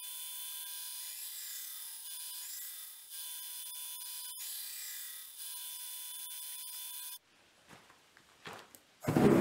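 Belt grinder running with a 1080 high-carbon steel knife blade held against the belt, grinding the profile and roughing in the bevels. The grinding hiss stops about seven seconds in, and just before the end a gas forge burner starts with a loud rush.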